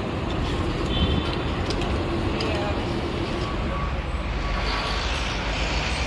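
City street traffic: a steady low rumble of passing cars, with a hiss swelling near the end.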